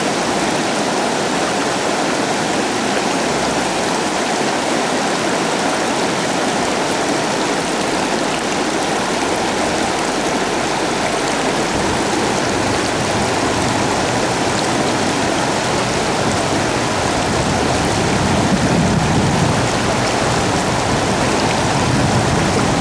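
Fast-flowing river current rushing steadily.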